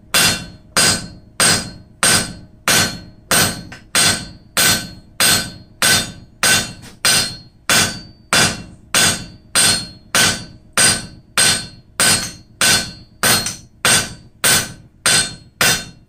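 Hand hammer striking a red-hot square steel bar on an anvil in a steady rhythm, roughly three blows every two seconds, each with a short bright metallic ring. The smith is forging chamfered facets onto the bar's edges.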